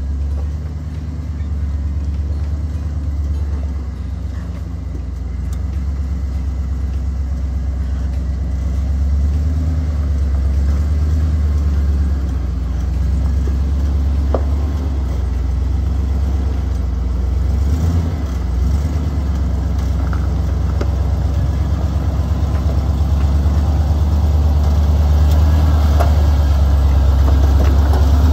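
Chevy K2500 pickup's engine running at low speed as the truck crawls over rocks, growing steadily louder as it comes closer. A couple of short knocks come through partway along.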